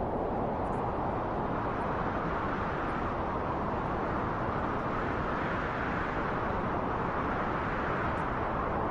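Recorded wind sound: a steady rushing of wind that swells a little in the middle and eases slightly near the end.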